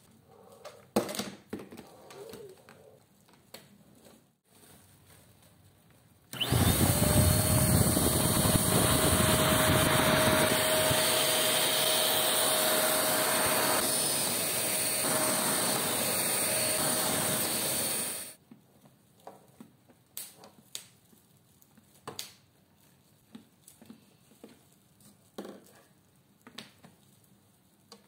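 Deerma DX115C corded stick vacuum cleaner switched on and running steadily with a whine for about twelve seconds, its floor brush head on carpet; it starts abruptly about six seconds in and cuts off suddenly. Before and after it, light clicks and knocks of the vacuum's plastic parts being handled.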